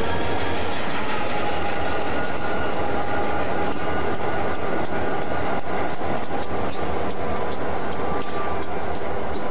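Diesel-electric locomotive engines idling: a steady rumble with a constant high whine. In the second half, a quick run of regular high ticks comes in, about three a second.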